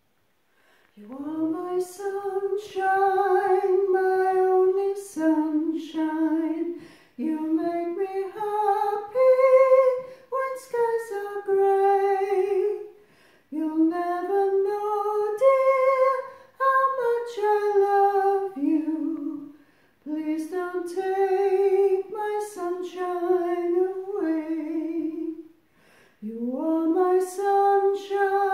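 A woman's soprano voice singing alone without accompaniment, in phrases of a few seconds with short breaks for breath between them. Held notes carry vibrato.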